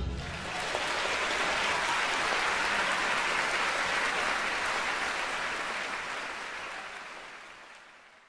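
An audience applauding, steady at first and then fading out over the last three seconds.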